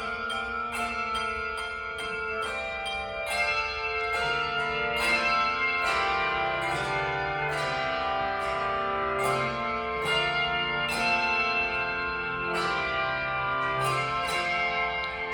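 Handbells playing a tune: a steady stream of struck, ringing notes, several a second, overlapping as they sustain. Lower, deeper bells join in about four seconds in.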